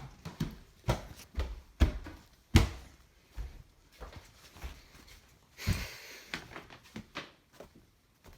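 Irregular knocks and thumps, several sharp ones in the first three seconds, with a brief rustle a little under six seconds in.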